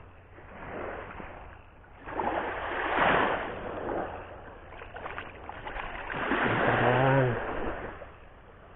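Sea waves washing in against a rocky shore, coming in three swells that build and fade, with a short voice sound near the end.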